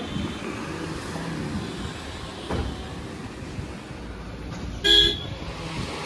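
A single short car horn toot about five seconds in, the loudest sound here, over steady background noise.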